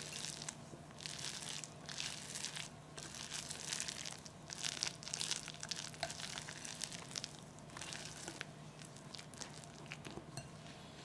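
Kitchen food-preparation noise: a run of uneven scraping, crunching strokes, some a second long, with an occasional light clink.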